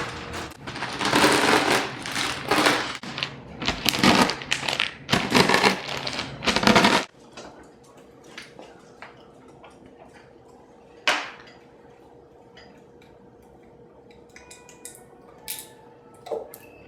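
Fritos corn chips in a plastic zip-top bag being crushed with a rolling pin: loud crackling and crunching that stops abruptly about seven seconds in. After that, only a few faint clicks and knocks.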